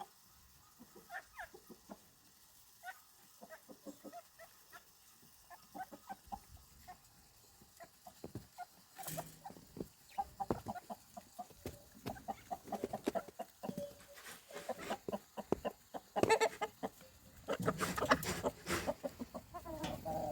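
Farm animals: short, scattered calls and clicks, sparse at first and growing busier and louder about halfway through.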